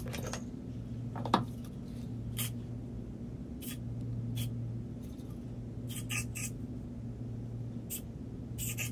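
Aerosol can of Got2b Glued hair freeze spray hissing in a string of short bursts as it is sprayed onto the front edge of a wig cap. A sharp click a little over a second in, over a steady low hum.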